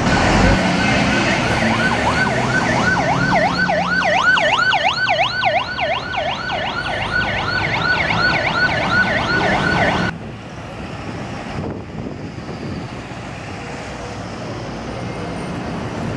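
Emergency vehicle siren in a fast up-and-down yelp, about two to three sweeps a second, over street traffic noise. It cuts off suddenly about ten seconds in, leaving only traffic noise.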